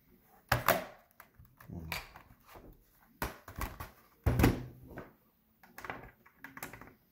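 Hard objects being handled on a work surface: a series of short knocks and clatters, about half a dozen, the loudest a little past four seconds in.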